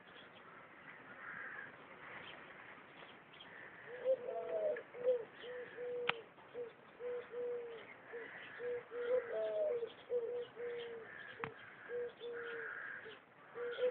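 A pigeon cooing: a run of short, low, even notes about twice a second, starting about four seconds in, broken twice by a higher rising coo. Small birds chirp faintly behind it.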